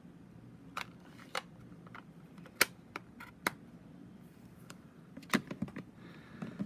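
Irregular sharp plastic clicks and taps, about a dozen over several seconds, the loudest about two and a half and five seconds in: a Stampin' Up ink pad being snapped shut and put away.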